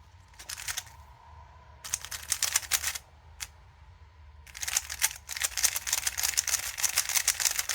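Moyu Weilong Ferrocore speedcube being turned quickly by hand, its freshly lubed layers making runs of rapid clacks. Short bursts come with pauses between them, then a long continuous run fills the last three seconds.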